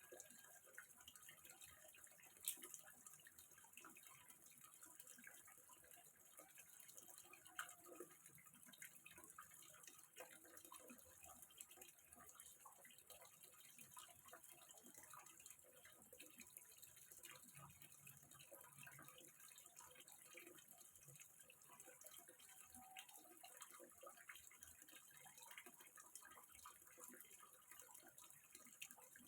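Faint trickling and dripping of water into a small fish pond, with two sharper clicks about two and a half and seven and a half seconds in.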